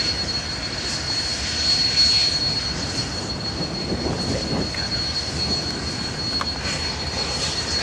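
Union Pacific 844, a 4-8-4 steam locomotive, moving slowly: a steady hiss and rumble with a constant high whine, a few soft swells near the middle and a small click past the middle.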